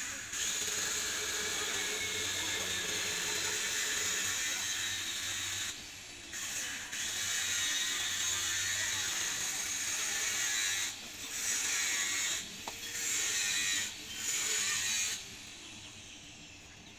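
Power grinder grinding the steel of a knife blade, in four runs of a few seconds with short breaks between. Near the end the motor winds down.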